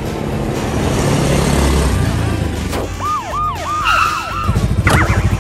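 A rushing noise with a low rumble, then about a second and a half of a fast up-and-down siren yelp, six short wails in quick succession.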